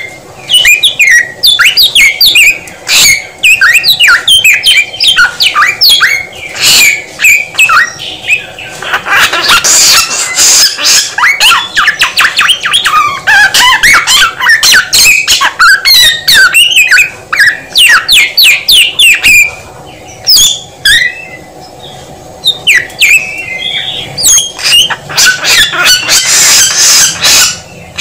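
Samyong songbird singing a fast, varied run of short whistled and chirping notes, phrase after phrase, with a couple of brief pauses.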